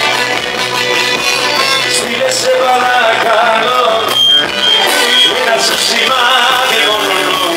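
Live Greek folk music from a small band: clarinet leading over drum kit and plucked strings, with a singer.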